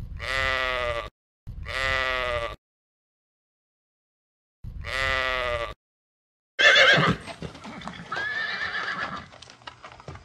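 A sheep bleats three times, each call about a second long and cut off into dead silence between them. About six and a half seconds in, louder animal calls follow over background noise.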